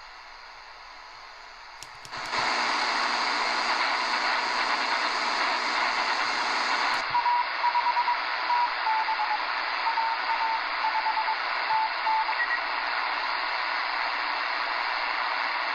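Shortwave static hiss from an Eton Grundig G5 radio tuned on the 40-metre ham band, jumping louder about two seconds in. About seven seconds in the radio is switched to single sideband and the hiss narrows, and a Morse code signal in short and long beeps comes through it for about five seconds.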